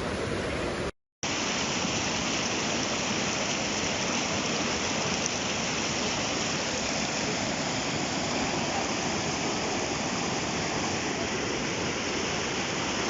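Rushing water of a fast mountain stream: a steady, even hiss. It cuts out for a moment about a second in and then carries on unchanged.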